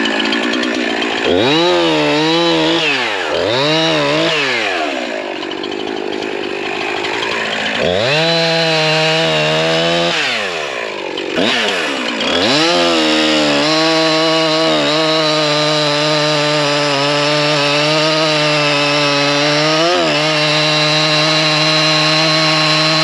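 Two-stroke chainsaw revving up and down several times, falling back toward idle in between. From about halfway in it is held at full throttle through a long cut into a limb of the fallen white oak, its pitch dipping briefly twice as the chain loads in the wood.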